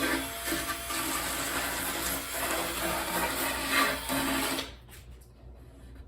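Cordless drill with a sanding disc attachment running and sanding, its motor hum under a coarse scratching, then stopping abruptly about three-quarters of the way through. Faint small clicks and taps follow.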